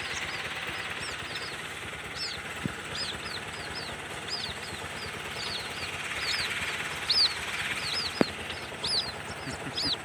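Moorhen chick peeping over and over: short high-pitched peeps, two or three a second. A single sharp click comes about eight seconds in.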